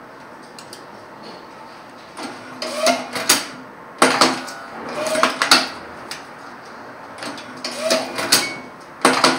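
Automatic film banding machine (YL 200NF) running through repeated banding cycles. Each cycle lasts a second or so: a motor whir with a short rising tone and sharp mechanical clicks as the heat-sealed film band is fed around the stack and pulled tight. Three cycles come about two, four and seven and a half seconds in, and a fourth begins near the end.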